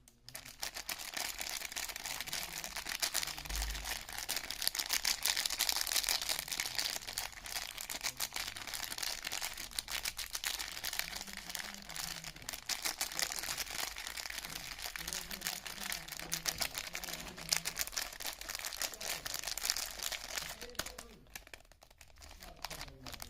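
Soap packaging being unwrapped by hand: the wrapper crinkles and rustles in a dense run of small crackles, easing off briefly near the end.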